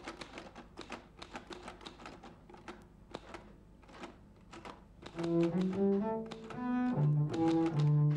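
Quick irregular clicks or taps for about five seconds, then a low bowed string instrument comes in about five seconds in, playing a slow melody of held notes.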